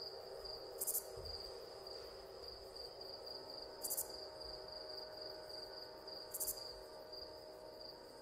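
Ambient soundtrack: a low sustained drone of held tones under a steady, pulsing, cricket-like high trill. A short bright hissy chirp cuts in three times, about every two and a half to three seconds.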